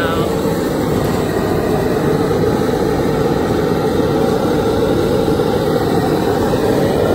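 Loud, steady rushing noise that holds at one level throughout, with no pitch and no rhythm.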